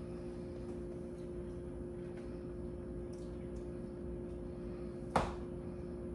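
Steady hum of a kitchen appliance, with faint ticks as seasoning is shaken over fish and one sharp knock a little after five seconds in.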